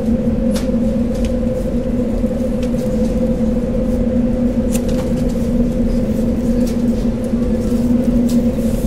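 Steady mechanical hum with two fixed pitches over a low rumble, broken by a few faint clicks and ticks.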